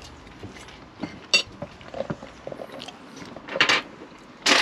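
Spoons and plates being handled at a table: three sharp clinks and knocks, the loudest near the end.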